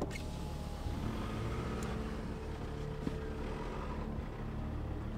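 Car engine running with a steady low hum and road noise, heard from inside the cabin while driving.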